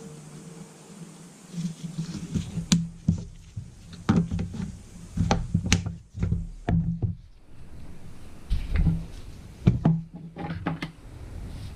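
Irregular knocks and clicks of chainsaw parts being handled and fitted together during reassembly.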